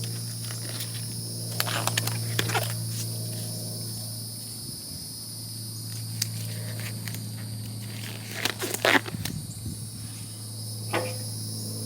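Gloves being pulled on and parts being handled: short rustles and light knocks, with a louder cluster of handling sounds about nine seconds in. Under it runs a steady low hum and a steady high-pitched buzz.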